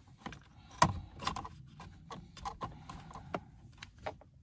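Irregular hard plastic clicks and knocks of a multifunction switch (turn-signal and headlight stalk) being worked onto the steering column's track and pushed into place, the sharpest knock about a second in.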